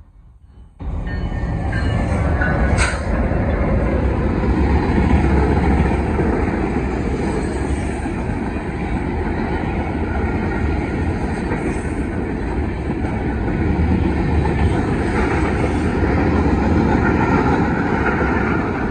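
Freight train cars rolling past close by: a steady, dense rumble and rattle of steel wheels on the rails. It comes in abruptly about a second in, with one brief sharp click a couple of seconds later.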